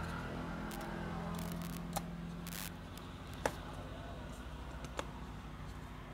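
Small circuit board handled in the fingers and against a soldering iron: light rustles and three sharp clicks, the loudest in the middle, over a steady low hum.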